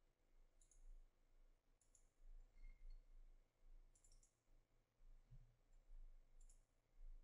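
A few faint computer mouse clicks, some in quick pairs, over near-silent room tone with a steady low hum.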